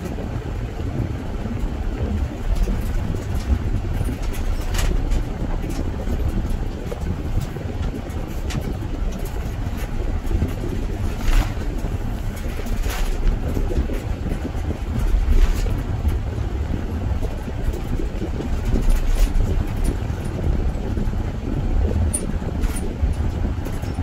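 Car driving on the road, a steady low rumble of tyres and engine, with a few short ticks or rattles.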